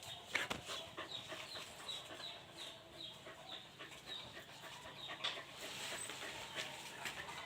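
Animal sounds, with chickens among them: a run of short high chirps, about three a second, with scattered clicks.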